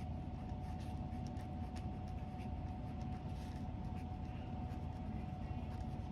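Pen writing on a paper workbook page: faint, short scratching strokes over a steady low background hum with a thin steady tone.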